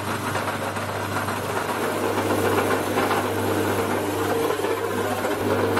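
Metal lathe running with a steady motor hum while a Forstner bit drills into a spinning wooden blank; the rough cutting noise grows louder about two seconds in.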